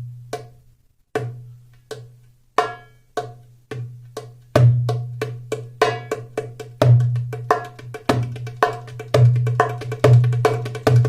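Darbuka played solo: deep ringing bass strokes alternate with sharper high and medium strokes in a repeating rhythm. The strokes start slow and widely spaced, then come faster from about halfway through.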